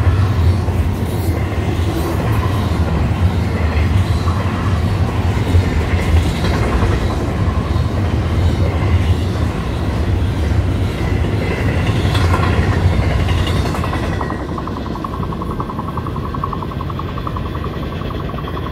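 Double-stack intermodal well cars rolling past on the rails: a steady rumble and clatter of steel wheels. It fades about fourteen seconds in as the last car clears, leaving a railroad crossing bell ringing rapidly.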